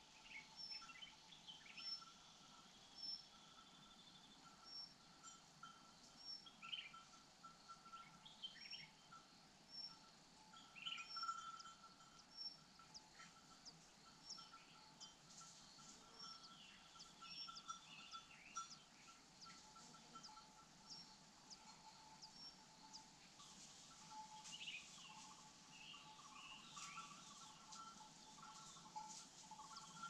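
Faint wild bird calls: a short high chirp repeated about once a second for the first third, with scattered short falling whistles throughout and a faint steady pulsing tone underneath.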